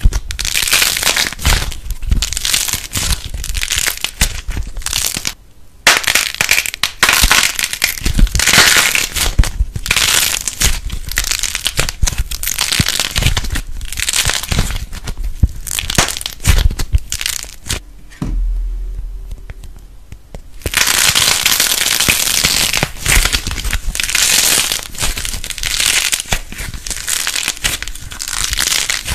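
Crunchy slime being squeezed and broken apart by hand: continuous crackling and crunching with many small pops. It breaks off briefly about five seconds in and goes quieter for a couple of seconds about two-thirds through, then starts again.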